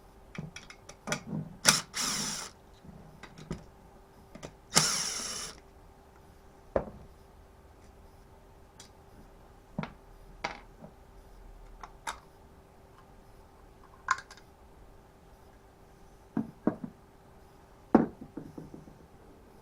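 Hand tools and small metal engine parts of a Stihl FS36 strimmer being worked during a teardown: scattered clicks and knocks, with two short bursts of rattling or scraping about two and five seconds in.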